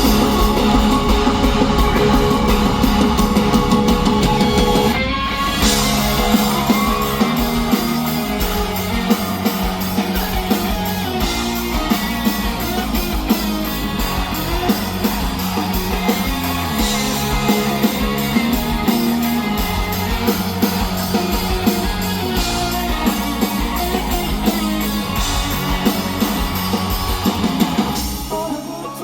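Rock band playing live on electric guitar, bass and drum kit, an instrumental passage before the vocals, with a brief break in the music about five seconds in.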